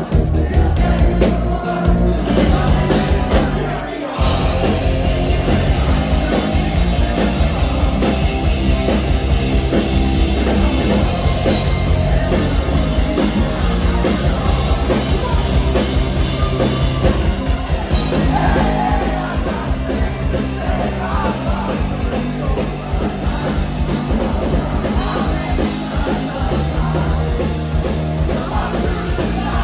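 Live rock band playing at full volume: distorted electric guitars, bass and drums, with singing. The band stops for a brief moment about four seconds in, then comes back in.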